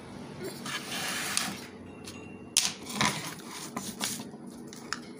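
Paper notebook pages rustling as they are handled and flattened on a bench for about the first second and a half, then a handful of sharp clicks and taps over the next few seconds.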